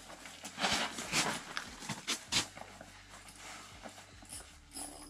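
A few short rustles and crunches of people shifting on the packed-snow floor of an ice-fishing hut, the loudest about two and a half seconds in.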